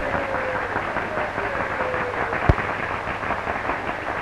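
Dinner audience applauding, many hands clapping at once. The applause starts suddenly. A faint tone slowly falls in pitch through the first half, and there is a single sharp click about two and a half seconds in.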